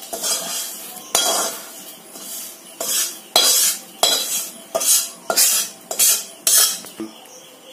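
Metal spatula scraping roasted semolina (suji) out of a metal kadai onto a plate: a run of about ten quick scrapes of metal on metal, with the gritty rasp of the dry grains.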